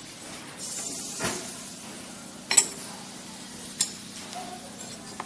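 Three sharp metal clinks and knocks, about a second and a quarter apart, the middle one the loudest, as tools and mould plates are handled. A steady low hum from the running machinery sets in about a second in.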